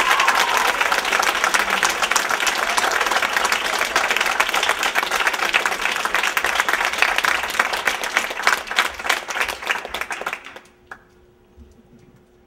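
Audience applauding, thinning to scattered claps and dying away about ten seconds in; afterwards only a faint steady hum remains.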